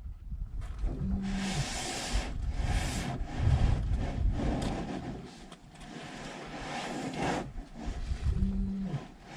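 Elephant rubbing its hide against the body of a parked 4x4 to scratch, giving repeated rough scraping rasps, a low thud, and two short creaks from the vehicle.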